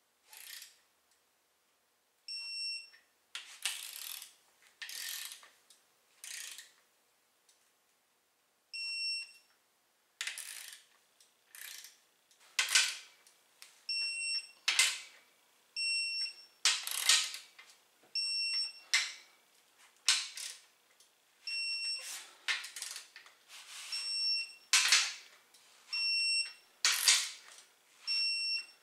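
Electronic torque wrench beeping, short high beeps about a dozen times, each signalling that a bolt has reached its set torque. Between the beeps come rasping ratchet strokes as the wrench is worked on the bottom-end bolts of a 6.0 Powerstroke diesel block.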